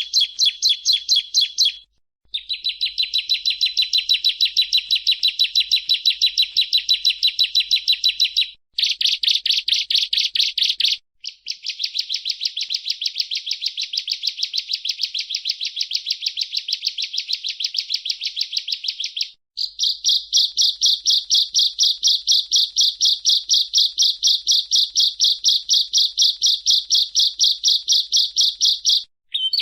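Bar-winged prinia (ciblek) singing: a fast, even run of high, shrill repeated notes, about five or six a second. It comes in long bouts that start and stop abruptly, with five short breaks.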